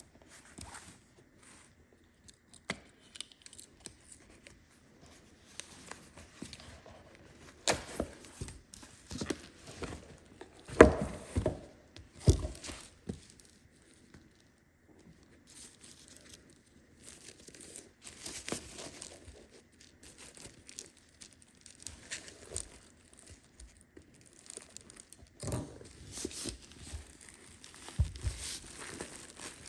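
Packaging of a box of cigars being torn open and crinkled by hand: irregular tearing and rustling, with a few louder knocks about halfway through.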